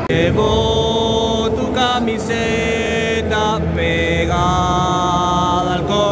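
A stadium anthem sung by a choir with long held notes over the public address, with the crowd's noise beneath it.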